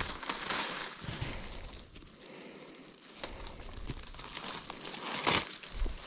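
Thorny brush and dry leaves rustling as a person pushes through them, with a few sharper cracks, the loudest about five seconds in.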